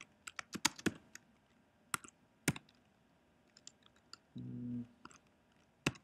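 Computer keyboard typing: scattered, irregular keystrokes as a short line of code is entered, with a brief low hum about two-thirds of the way through.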